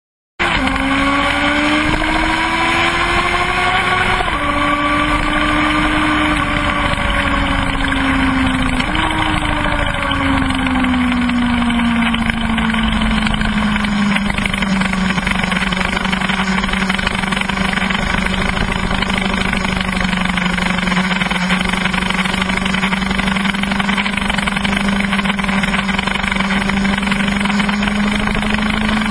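Kawasaki ZX-12R's inline-four engine under way on a track. Its pitch climbs, then drops sharply at a gear change about four seconds in. It jumps again near nine seconds, then settles into a steady drone that climbs slowly near the end.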